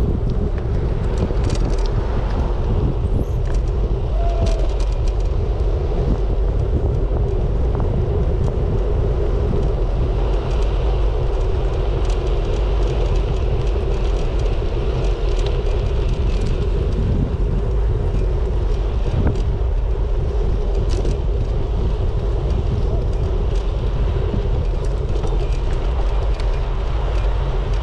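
Steady wind noise buffeting the microphone of a GoPro on a moving bicycle, mixed with the low rumble of the ride over the road.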